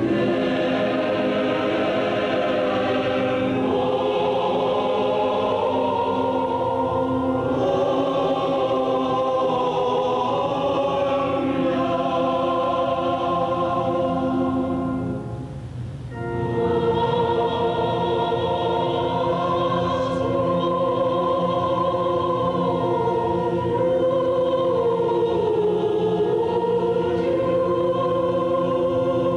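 Choir singing slow, held chords. The singing breaks off briefly about halfway through, then a new phrase begins.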